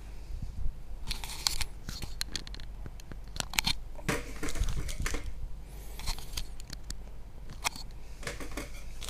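Plastic wrapping on a parcel crinkling and scraping as it is handled, in irregular bursts with sharp clicks.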